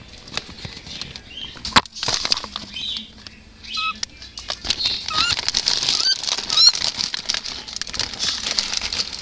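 Cockatiel moving about inside a cupboard: rustling, scrabbling and wing flutters, with a sharp knock about two seconds in. A run of short rising chirps comes about halfway through.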